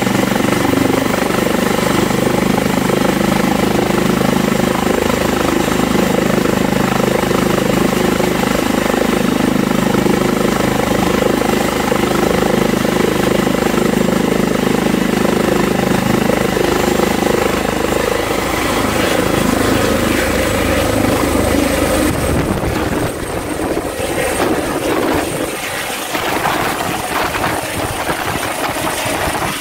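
An Airbus H145 rescue helicopter's turbines and rotor running at flight speed on the ground, with a steady hum. About two-thirds of the way through, the sound shifts abruptly to a rougher rotor rush as the helicopter lifts off and climbs away, growing slightly fainter.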